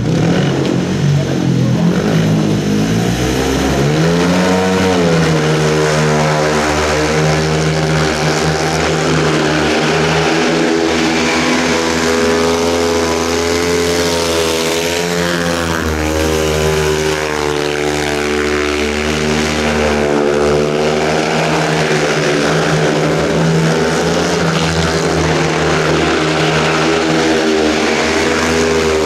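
Single-cylinder GM 500cc methanol speedway engine revving up hard as the bike pulls away about four seconds in. It then runs at high revs, the pitch dipping and rising with the throttle through the corners.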